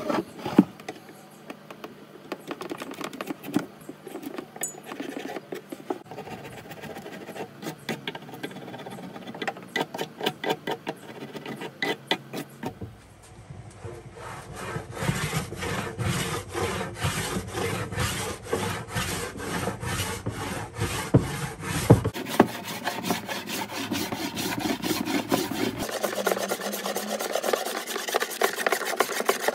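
Hand tools scraping and shaving old wood in quick, repeated strokes. First a chisel works the underside of a wooden dough table. From about halfway, a small hand plane shaves the tabletop.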